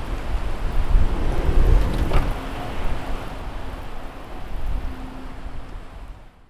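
Heavy rain with gusting wind buffeting the microphone, and a brief knock about two seconds in; the sound fades out near the end.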